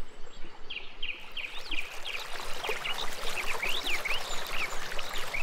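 Birds chirping, many quick high calls one after another, over the steady rush of flowing river water.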